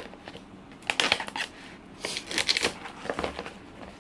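Plastic packaging tape being torn and peeled off a cardboard parcel: crinkling and crackling, loudest in two spells, about a second in and again around two and a half seconds in.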